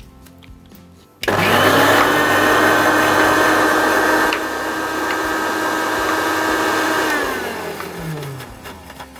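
Electric mixer-grinder switched on, grinding poppy seeds and green chillies into a paste. It starts suddenly about a second in and runs steadily for about six seconds, then winds down with a falling pitch as it is switched off.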